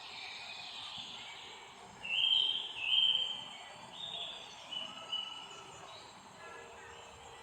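Birds singing: a run of clear, steady whistled notes, the two loudest close together about two seconds in, with softer notes following, over a faint steady hiss.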